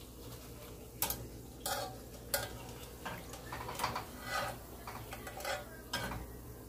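A wire spider skimmer clinks and scrapes against the pan and plate about five times while biscuit-dough-wrapped Oreos fry in hot oil with a faint sizzle.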